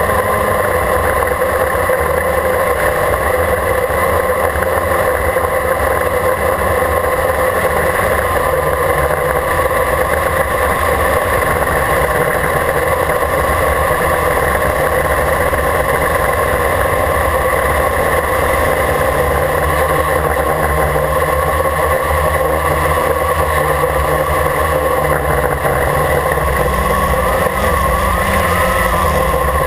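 Quadcopter's electric motors and propellers running in flight: a steady whine heard from the camera mounted on the craft itself. The pitch wavers slightly near the end.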